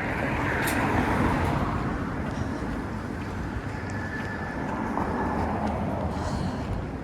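Steady city street traffic: cars passing on the road, a continuous wash of road noise that swells slightly about a second in.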